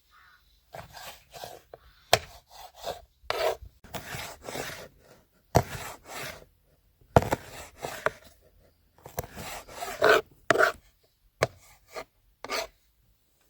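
Irregular rasping, scraping strokes of hand food preparation, with a few sharp knocks between them.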